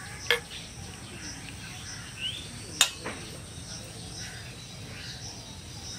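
Faint steady insect buzz with a few short rising bird chirps, broken by two sharp clicks, one just after the start and one about halfway through.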